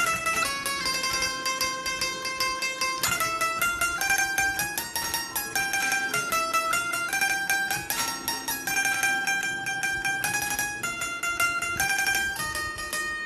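Benjo (Indian banjo, bulbul tarang) playing a melody: each note sustained by fast repeated plucking of its metal strings, stepping from note to note every second or so.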